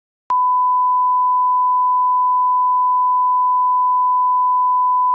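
Steady single-pitch reference test tone, the 'bars and tone' signal played with colour bars. It starts with a click about a third of a second in and holds unchanged.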